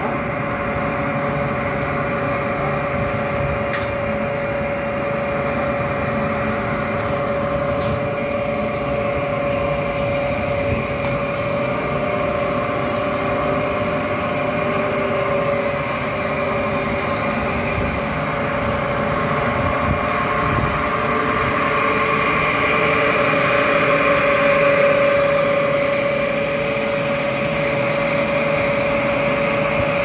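Steam boiler plant machinery running: a steady mechanical drone with a constant whine from the boiler's blower fan and pumps, swelling slightly about three-quarters of the way through.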